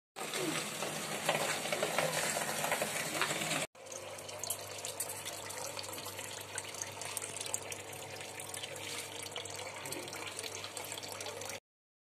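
Water splashing and trickling in a tarpaulin fish tank over a steady low hum, with an abrupt break a little under four seconds in before it resumes.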